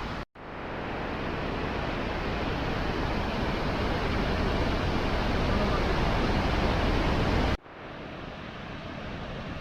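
Steady rushing roar of a waterfall's falling water, with a brief break just after the start and an abrupt drop to a somewhat quieter rush about seven and a half seconds in.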